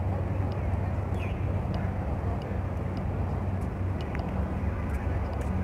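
Steady city traffic rumble with a low, even hum and no break.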